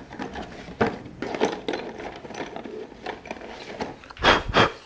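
Small clicking and rattling of handled objects, like chalk sticks knocking together in a box as someone picks out a piece of coloured chalk, with two louder scuffs near the end.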